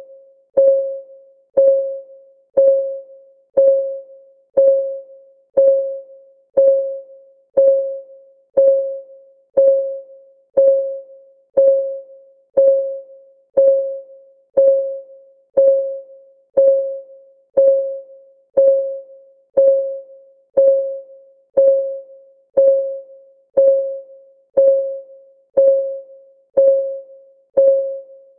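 Clock-ticking sound of a countdown timer: one short, pitched tick each second, each dying away quickly, in a steady, even rhythm.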